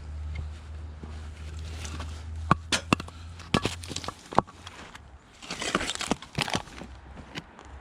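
Split hardwood firewood logs knocking against each other as they are handled and stacked by hand: a series of sharp wooden knocks with a rustling scrape in between. A low steady hum underneath stops about four seconds in.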